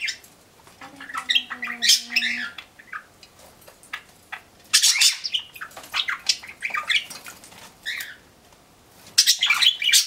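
Pet budgerigars chirping and squawking in short, sharp bursts, with wing flutters and splashes as one budgerigar bathes in a bird bath.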